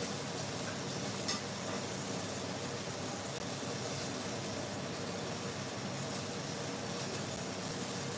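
Fish frying in a covered pan: a steady sizzle, with one light click about a second in.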